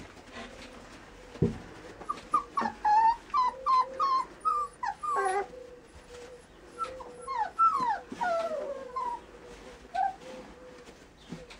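Border collie puppies whimpering and yipping: a quick string of short, high calls, several sliding down in pitch, from about two seconds in until about nine seconds in.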